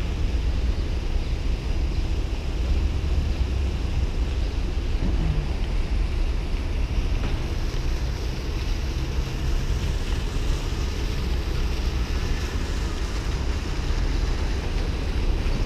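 Wind rumbling on the microphone over low vehicle and street noise, steady throughout.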